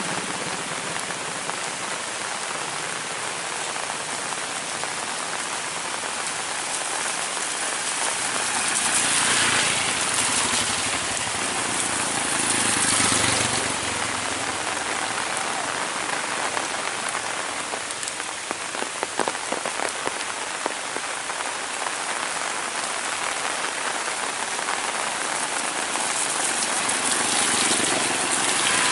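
Heavy rain falling steadily, swelling louder a few times, with a short run of sharp drip taps about two-thirds of the way through.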